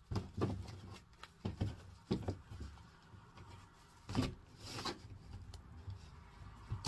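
Tarot cards being handled: a few scattered soft taps and brief slides of cards, the clearest two about four and five seconds in, over a faint steady hum.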